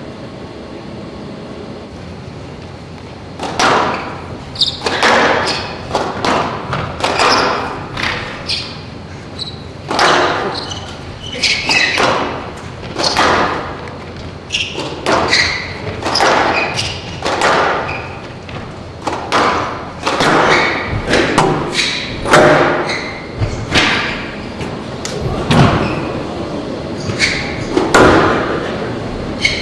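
Squash rally: the ball striking racquets and the court walls in a steady run of sharp thwacks about once a second, starting about three and a half seconds in.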